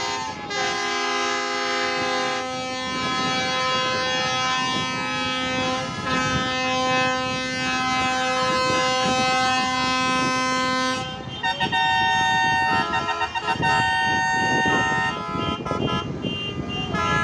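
Truck air horns and car horns sounding together in long held chords of several pitches. About eleven seconds in, the chord changes and the horns sound in shorter, broken blasts.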